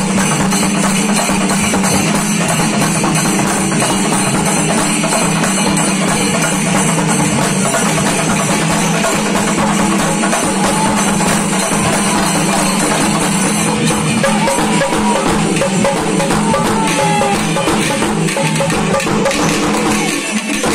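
Live traditional Kerala festival drumming by a percussion troupe, playing continuously and loudly.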